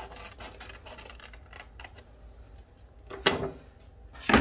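Scissors cutting through a manila file folder: a run of small, quick snipping clicks, then two louder rustles of the stiff folder being handled near the end.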